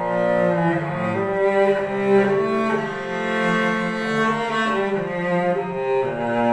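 Solo cello bowed, playing a melody in long sustained notes that change about once a second.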